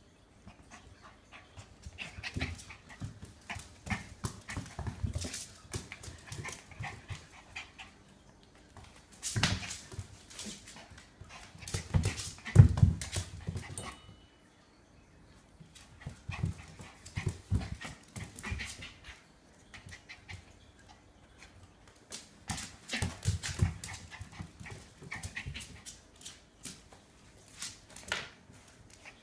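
A Shiba Inu spinning around after its own tail. Its busy taps, scrabbles and dog sounds come in several spurts separated by short pauses.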